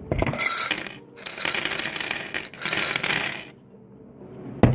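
A mass of small hard toy diamonds clattering together in three bursts of about a second each, then a single sharp knock near the end.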